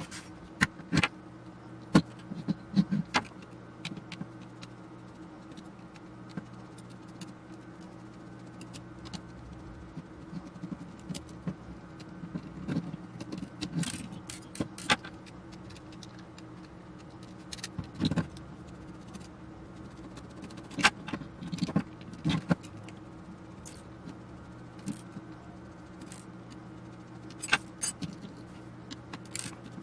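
Scattered small metallic clicks, clinks and taps of tools and parts being handled while an avionics control box is taken apart, with a steady low hum underneath.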